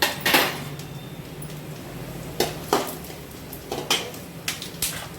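A metal spoon clinking and scraping against a cooking pan as whole spices and coriander seeds are stirred and roasted in a little oil. It is a series of about eight sharp clinks, several of them in quick pairs.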